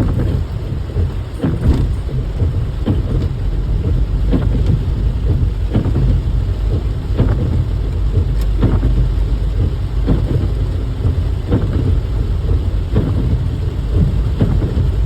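Heavy tropical rain pouring down, a constant dense low noise with frequent sharp splats of heavy drops striking nearby surfaces.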